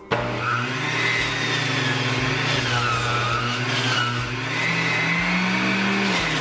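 Electric centrifugal juicer switched on and running while pineapple chunks are pressed down its feed chute. The motor starts suddenly, then runs with a steady hum whose pitch sags and recovers as the fruit loads the spinning cutter.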